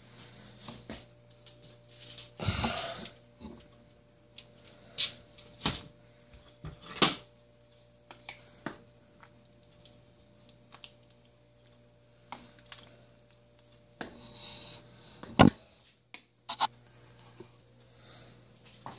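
Scattered clinks and knocks of a stainless steel pot and its lid being handled and a wooden spoon stirring stew in it, over a faint steady hum. The two sharpest knocks come about seven seconds in and about fifteen seconds in.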